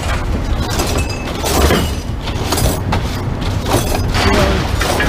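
Truck running with a steady low rumble, with repeated clattering knocks from loose metal scrap rattling in its load.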